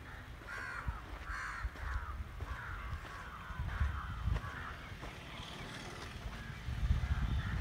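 Crows cawing: two harsh caws in the first two seconds, then a quicker run of caws, over a low rumble.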